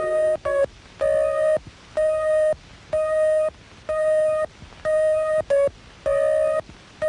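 Computer-generated electronic bleeps from a VC3 synthesiser controlled by a PDP-15 computer: a string of tones at one steady pitch, each about half a second long, roughly one a second, with a couple of short extra blips in between.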